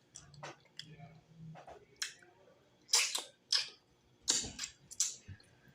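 Close-up mouth sounds of eating cooked cow's foot: wet lip smacks and chewing clicks, with a run of louder sharp smacks in the second half.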